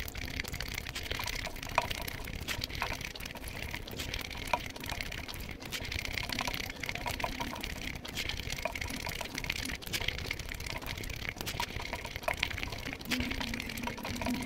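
Close-miked wet chewing and lip-smacking of rice and meat curry eaten by hand, a dense run of small moist clicks and squelches.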